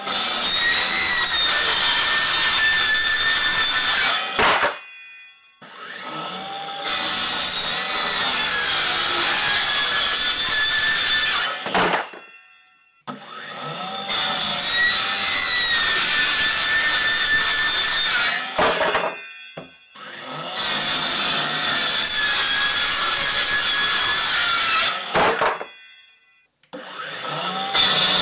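Kobalt 24V brushless cordless circular saw cutting through a painted wooden door. It runs in four stretches of several seconds, stopping briefly between them, with a high motor whine over the noise of the blade in the wood.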